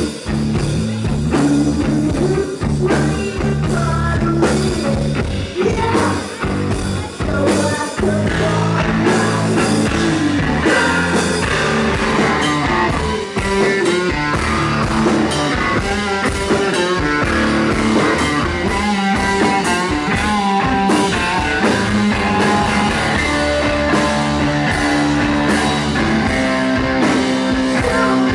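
Live rock music: electric guitar and drum kit playing with singing, loud and continuous.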